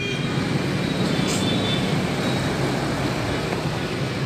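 Steady road traffic noise: engines of passing vehicles running without a break.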